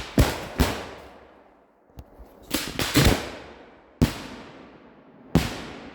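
Firework bangs: a string of sharp reports in small clusters, about eight in all, each trailing off in an echo.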